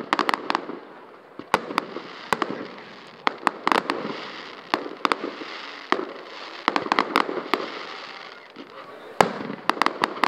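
Fireworks display: aerial shells bursting in quick clusters of sharp bangs, volley after volley, the loudest bang coming near the end.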